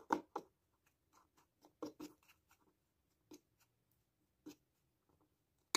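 Metal fork clinking and scraping against a ceramic bowl while beating an egg, flour and sugar mixture: light, irregular taps, with one sharper click near the end.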